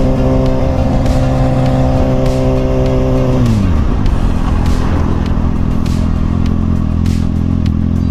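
Kawasaki ZX-6R's inline-four engine running at a steady cruise. About three and a half seconds in, its pitch falls quickly as the revs drop, then holds steady at a lower note.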